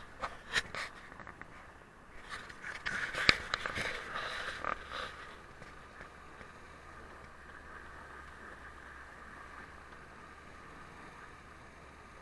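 Lada Niva jolting slowly through deep snow, picked up muffled by a camera fixed to its body: irregular knocks and scrapes for about the first five seconds, then a faint steady hiss.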